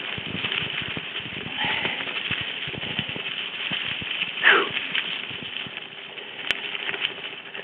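Mountain bike rattling and knocking over a rough, leaf-covered single-track trail: dense irregular clatter from the bike and tyres, with one brief falling squeal about four and a half seconds in.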